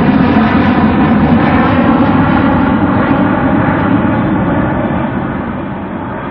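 Jet airliner's engines running loud as the plane passes, a dense rumble with a layered whine, fading slowly over the last two seconds as it moves away.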